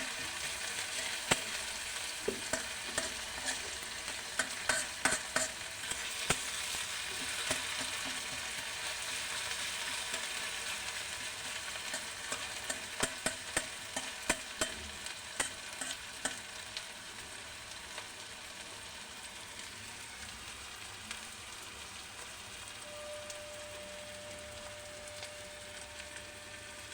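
Food sizzling in a hot pan while a spatula stirs it, clicking and scraping against the pan in bunches of quick strokes. The sizzle slowly dies down toward the end.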